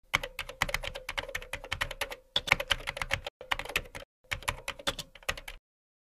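Computer keyboard typing sound effect: rapid runs of key clicks with a few short breaks, stopping shortly before the end, as end-card text is typed out on screen.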